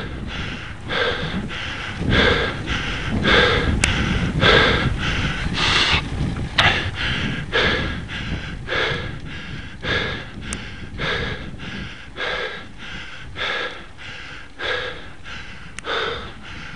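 A cyclist panting hard while pedalling up a steep 11% road climb, breaths coming in a quick, even rhythm under a second apart, louder in the first half: the labouring breathing of a rider near his limit on the gradient.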